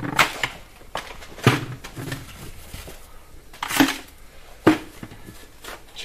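Coarse, grainy old snow being scooped by hand into a plastic bucket. It makes several separate crunching scrapes and knocks against the plastic, with short pauses between them.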